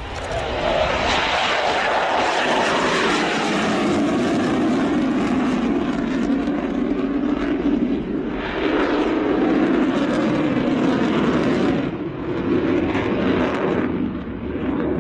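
Jet noise from the Panavia Tornado A-200's twin turbofans, a loud, steady roar that swells over about the first second, dips briefly about twelve and again about fourteen seconds in, and eases near the end.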